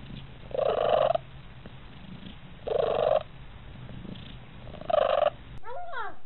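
A cat making an odd, repeated call: three short calls about two seconds apart, over a low steady hum. Near the end a meow whose pitch rises and falls.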